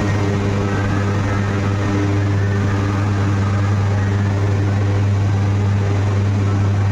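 Electric arc ladle furnace running: a loud, steady deep electrical hum with rough crackling noise over it.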